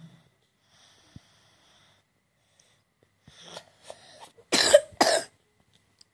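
A young child coughing twice in quick succession, loud and harsh, after a few softer sounds in the throat. It is the lingering cough that doctors put down to his enlarged adenoids and blocked nose.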